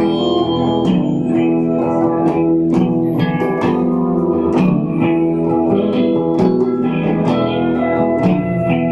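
Live rock band playing: guitars holding long, sustained notes over electric bass, with frequent drum and percussion hits.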